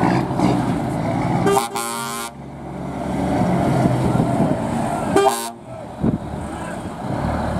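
Truck horn blown twice, a blast of nearly a second and then a shorter one about three seconds later, over the steady running of truck engines.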